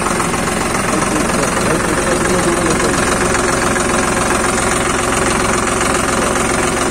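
Eicher tractor's diesel engine idling steadily.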